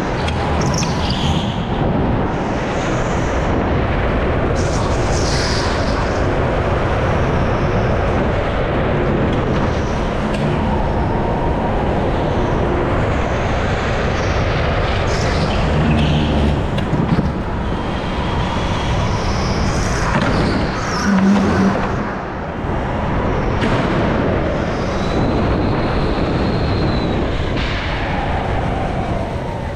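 Go-kart running at speed around an indoor track, heard from the driver's seat: a steady, loud mix of the kart's drive and its tyres on the track surface, with a thin high squeal a few seconds before the end.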